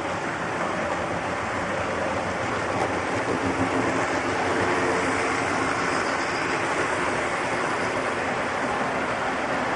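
An HO-scale model freight train running past close by, its wheels rolling on the rails with a steady noise that grows louder as the SD70 locomotives come by about four seconds in, then holds steady as the boxcars roll past.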